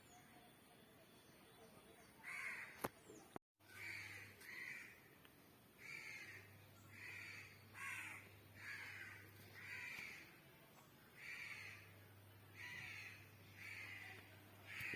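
A bird calling over and over, about a dozen short, similar calls roughly once a second, starting a couple of seconds in.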